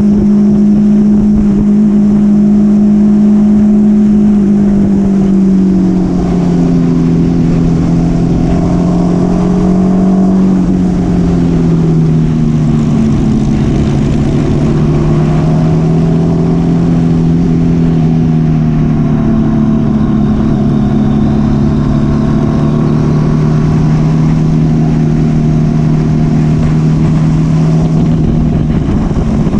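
Motorcycle engine running at a steady cruise, its note holding level and dropping slightly in pitch about six seconds in and again around eleven seconds.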